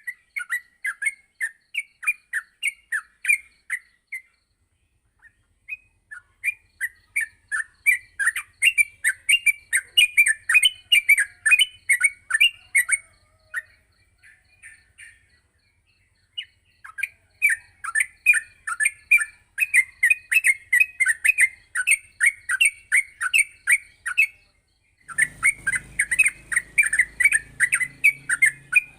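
Yellow-vented bulbul (trucuk) singing its fast, chattering song: quick runs of short, sliding notes in several long bouts broken by brief pauses. A low hum joins in near the end.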